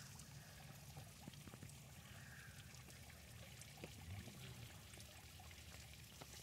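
Faint, steady trickle of running water with a few small drips.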